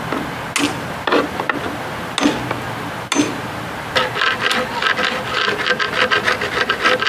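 Tool knocking loose chunks of fiberglass from a boat transom: a few separate knocks, then from about four seconds in a fast, even run of taps.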